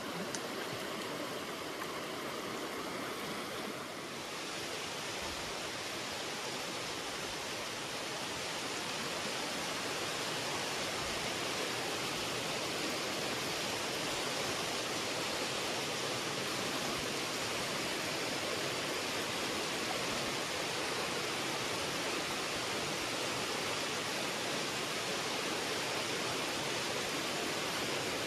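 Creek water rushing over rocks in shallow riffles: a steady rush that steps up a little, louder and brighter, about four seconds in.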